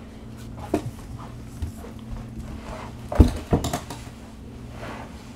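Handheld camera being handled: a few short knocks and bumps, the loudest about three seconds in, over a steady low hum.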